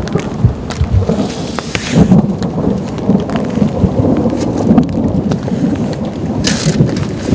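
Long low rumble of thunder that swells and fades unevenly, over rain pattering steadily down.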